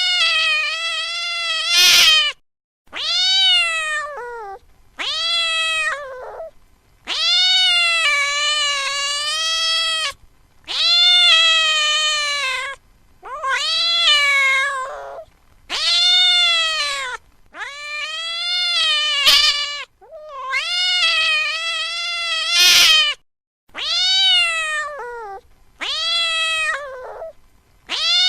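A cat meowing over and over: about a dozen long, drawn-out meows, each rising and then falling in pitch, with short pauses between them.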